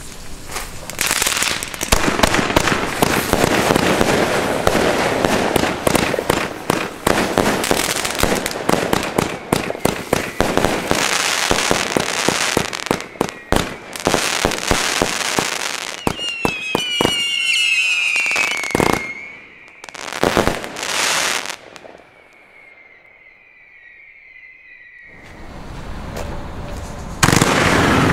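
'Proud & Loud' consumer firework battery firing a rapid, dense string of shots and bursts for about sixteen seconds, then several falling whistles and a few last bangs. After a quieter stretch, a second battery starts firing near the end.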